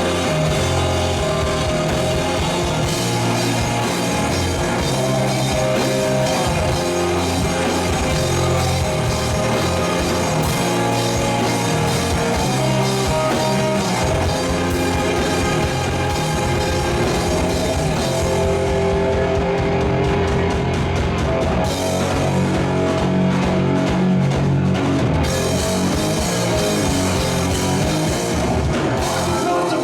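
Rock band playing an instrumental passage, with guitar and drum kit, steady and loud.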